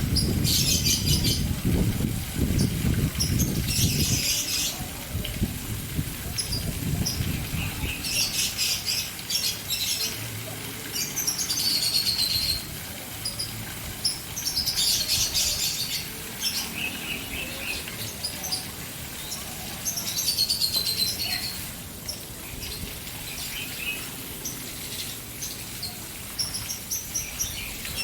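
Caged birds chirping in repeated bursts of high calls, a few sliding downward, over the steady splashing hiss of a fountain. A low rumble sounds through the first several seconds, then fades.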